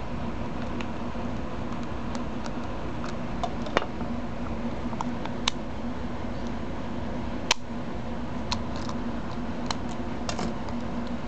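Small scattered metal clicks and taps of a lock pick and tension wrench working the pin cylinder of a Master combination lock, a few seconds apart, the sharpest about halfway through, over a steady low hum.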